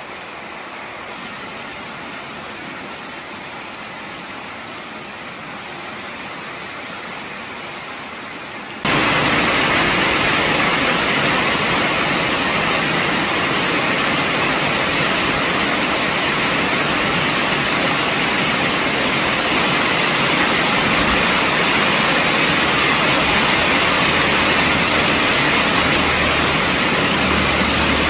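Heavy tropical rain pouring down, a steady hiss; about nine seconds in it turns abruptly louder and fuller, rain splashing on flooded ground. Near the end a low rumble of a car driving through the rain on the wet road is added.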